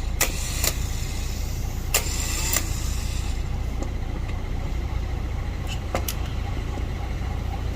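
Repaired Lexus LX570 starter motor, its solenoid switch just fixed, running on test with a whir and several sharp clicks over the first three seconds. The whir fades a little past three seconds, leaving a steady low hum.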